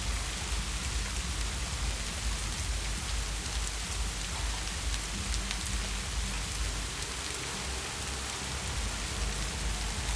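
Heavy rain falling steadily: a dense, even hiss of drops with fine ticks of single drops and a low rumble underneath.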